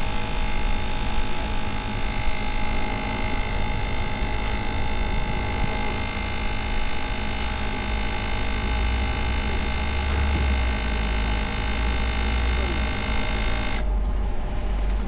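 Motorcycle running steadily under way, with low wind rumble on the microphone and a set of steady whining tones over it. The top end of the sound cuts off abruptly near the end.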